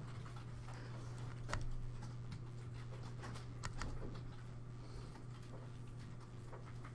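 Calculator keys being pressed: scattered faint clicks, a few sharper ones about a second and a half and three and a half seconds in, over a steady low electrical hum.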